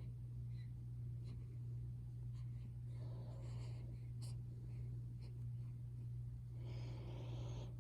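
Steady low hum, with two soft noisy stretches about three and seven seconds in and a few faint clicks.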